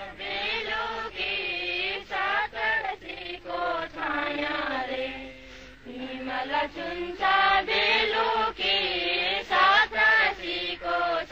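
Voices singing a chant-like song, with held, wavering notes in short phrases broken by brief pauses.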